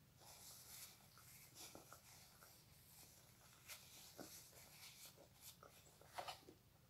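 Faint close-miked chewing and mouth sounds of someone eating: a string of soft clicks and smacks.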